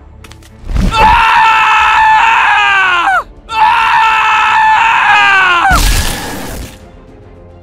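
Two long, high screams, nearly identical, each falling in pitch as it ends. Right after them comes a noisy crash with a low thud.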